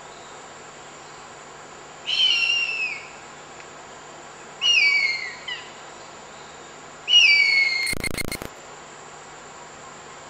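Harpy eagle giving three high-pitched calls a couple of seconds apart, each about a second long and falling in pitch. A brief clatter cuts across the end of the third call.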